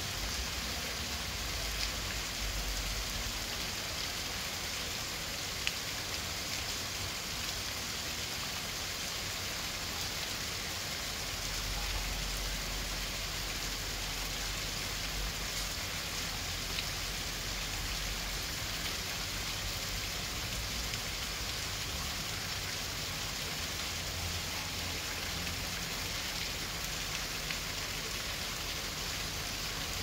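Heavy rain falling steadily onto a pond and grass: an even, dense hiss with a few sharper drop hits.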